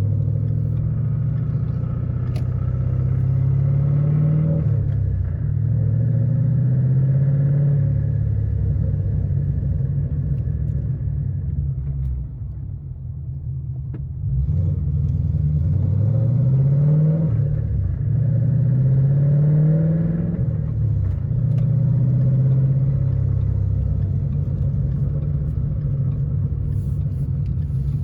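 2013 Ford Mustang GT's 5.0 Coyote V8 running, its pitch climbing and falling back several times as it is revved. The owner says this engine has developed a rod knock.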